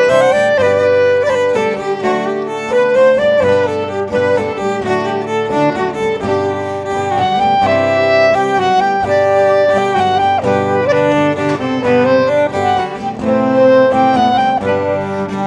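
Live folk band playing an instrumental tune on fiddle and clarinet over acoustic guitar.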